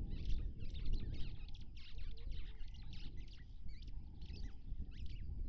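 Many small birds chirping and twittering in a dense run of short, high calls, over a low rumble of wind on the microphone.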